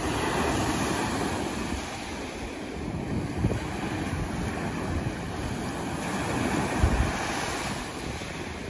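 Small surf breaking and washing up onto a sandy beach, a steady rush of water, with wind buffeting the microphone in a brief gust near the end.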